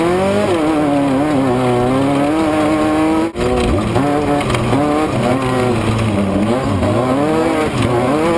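Off-road race vehicle's engine running hard, its pitch climbing and falling again and again as it revs up and down. The sound cuts out for an instant about three seconds in.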